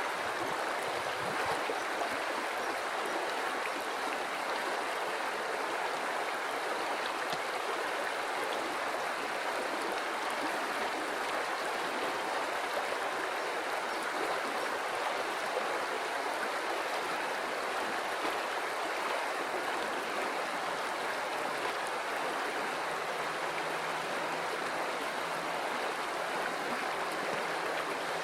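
River water flowing steadily over rocks, a constant rushing and babbling with no change in level.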